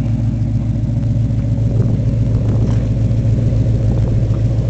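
Ford 400 V8 engine of a 1981 F-350 idling steadily, its low rumble heard from the single exhaust.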